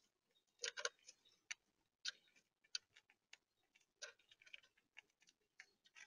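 Gray squirrel chewing food right at the microphone: irregular sharp clicks coming in small clusters.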